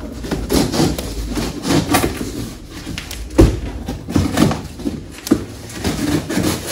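A cardboard box being cut open with a small knife and handled: irregular scraping of the blade along the taped seam, rustling cardboard and short knocks, with one sharper knock about three and a half seconds in.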